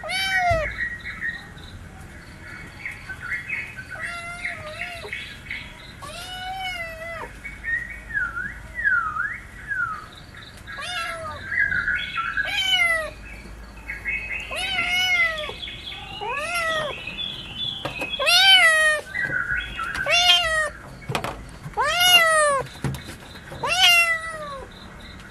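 Kittens meowing over and over: about a dozen high meows, each rising then falling, roughly every two seconds and louder toward the end. Fainter bird chirping runs underneath.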